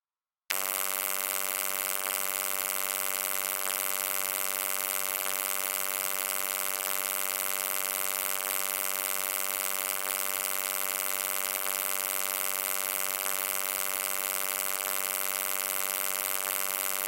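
Low electric hum that starts abruptly about half a second in and then holds steady, buzzy and with a hissy top.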